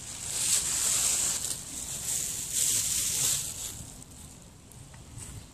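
Tent fabric rustling and crinkling as it is handled on a plastic tarp, in two loud stretches over the first three and a half seconds, then quieter.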